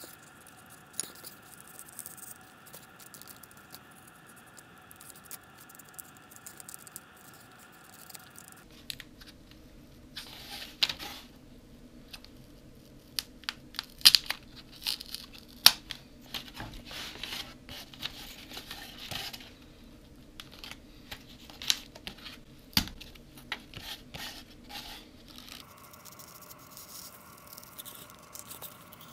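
A utility knife blade cutting and scraping through polystyrene foam, giving scratchy, tearing scrapes with sharp little cracks. The cutting comes in bursts and is loudest through the middle stretch.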